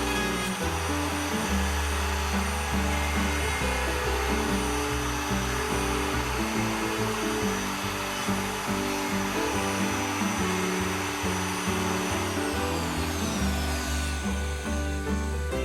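Wood router cutting a hinge mortise in a door edge, its motor whine steady, then falling in pitch as it spins down after switch-off about twelve seconds in. Background music with a stepping bass line plays throughout.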